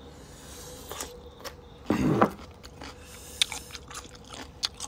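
Close-up eating sounds: chewing with scattered sharp clicks and small scrapes, and a louder short sound about two seconds in.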